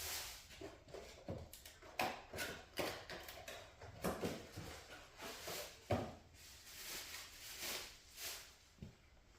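Scattered light clicks, knocks and rustling as hand tools are put away and a replacement ignition coil pack is handled.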